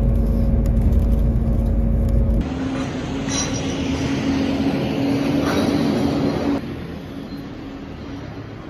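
A motor vehicle's engine running close by on the street, a steady hum over a heavy low rumble. The sound changes about two seconds in and drops off about two seconds before the end.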